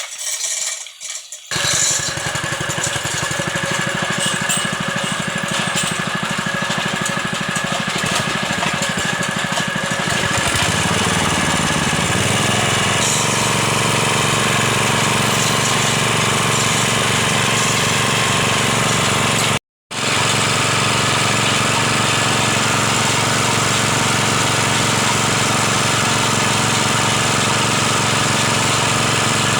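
Small engine of a well-drilling machine starting about a second and a half in and then running steadily, getting louder and fuller about ten seconds in. A split-second gap breaks the sound about two-thirds of the way through.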